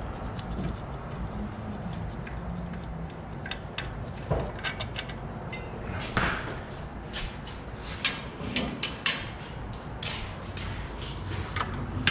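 Scattered sharp knocks and clanks of objects being handled, clustered about four to five seconds in, around six seconds, and again from eight to ten seconds, over a steady low hum of shop background.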